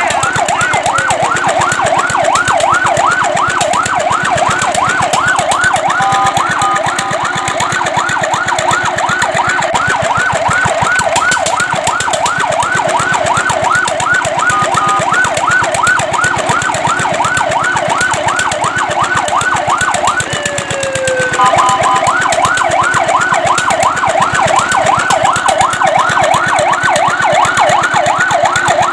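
Fire truck's electronic siren in a fast yelp, sweeping up and down about three times a second. About twenty seconds in the yelp breaks off briefly with a falling tone, then starts again.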